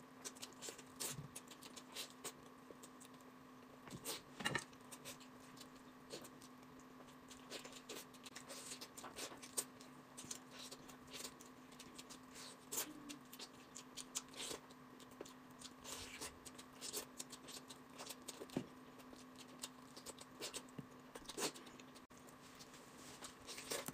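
Faint eating sounds of a person chewing braised pork: irregular small smacks and clicks of mouth and chopsticks, spread through the whole stretch.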